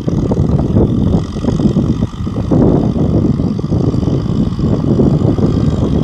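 Kubota M6040 SU tractor's four-cylinder diesel engine running under load as it ploughs, a continuous, uneven low rumble.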